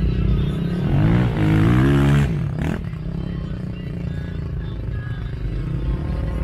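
A small ATV engine revving up about a second in, its pitch rising, then easing back, with a sharp knock just after. A low steady engine hum runs underneath throughout.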